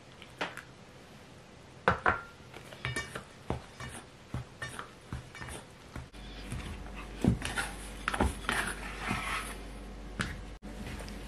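Plastic dough scraper knocking and scraping against a stainless steel mixing bowl as flour and water are mixed into dough: a run of irregular clinks and scrapes, the sharpest about two seconds in.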